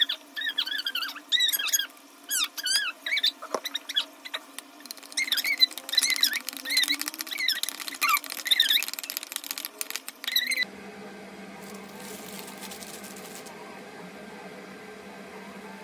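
A metal spoon squeaking and scraping against a white bowl while thick ketchup, mustard and mayonnaise sauce is stirred: a quick run of high squeaks and clicks. About ten seconds in it cuts off abruptly to a steady low hum with a short soft hiss, as a brioche bun is sliced with a bread knife.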